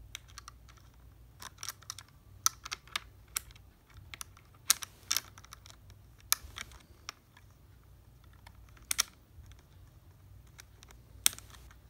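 A small metal screw and the hard plastic of a batting helmet and its C-flap clicking and tapping as the screw is fiddled into its hole by hand. The clicks are sharp and come at uneven intervals, a few louder than the rest.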